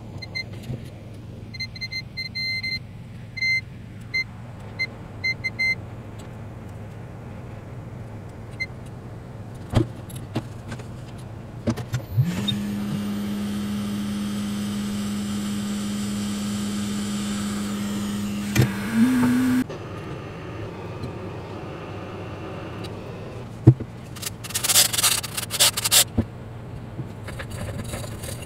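A small electric motor or blower switches on and runs with a steady hum and hiss for about six seconds, steps up in pitch briefly, then cuts off. A string of short electronic beeps comes before it, and a burst of clattering, handling noise comes near the end.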